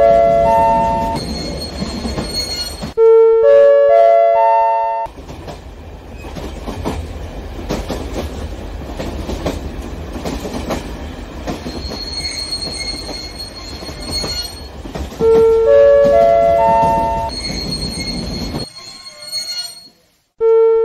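A train rolling along the track with a steady rumble and a thin high wheel squeal in the middle. A rising four-note chime sounds four times, at the start, about three seconds in, about fifteen seconds in and right at the end. The sound drops out briefly just before the last chime.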